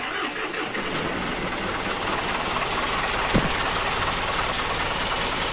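Isuzu FRR medium bus's front-mounted diesel engine idling steadily, heard from inside the cab beside the engine cover.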